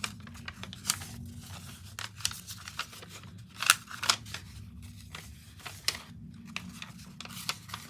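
Sheets of paper being dabbed onto an inked, lightly wetted craft mat and lifted off: irregular soft taps and paper crinkles, with a louder tap about a second in and again near the middle. A steady low hum runs underneath.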